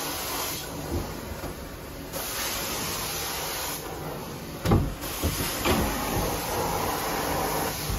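Carpet-cleaning extraction wand being pulled over carpet: a steady suction rush with a loud spray hiss that cuts in and out in three spells. A single sharp knock a little past halfway.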